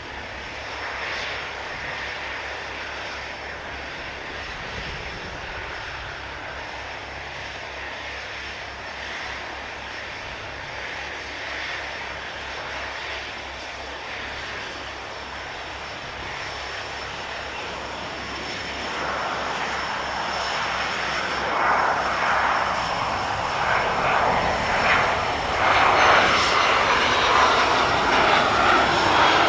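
Cessna Citation XL's twin turbofan engines on approach to land, the jet sound steady and distant at first, then growing much louder from about two-thirds of the way through as the aircraft comes close.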